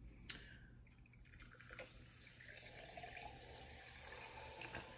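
A sharp click near the start, then 7Up soda poured from the can over ice in a glass mug: a soft fizzing splash that grows louder in the second half.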